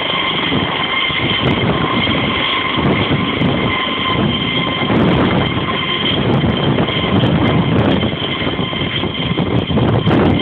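Navy helicopter flying low overhead: a steady high turbine whine over heavy, churning rotor noise.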